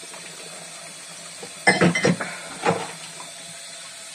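Pots and dishes clattering in a kitchen sink while being washed: a quick run of sharp knocks a little under halfway in and one more about a second later, over a tap running faintly.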